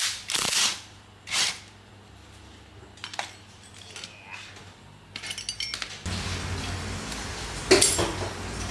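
Metal clinking and knocking, then from about six seconds in a steady low machine hum with a few louder noises over it.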